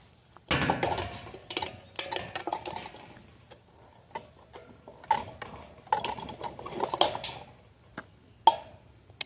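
A bird feeder being handled, with irregular clattering knocks and rustling of its hard parts and two sharp clicks near the end.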